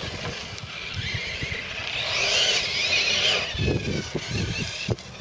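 Electric 1/8-scale Losi 8ight truggy with a Tenshock X812L brushless motor, its motor and drivetrain whining as it accelerates and then backs off, the pitch rising and then falling in the middle. A few low thumps and a sharp knock follow near the end.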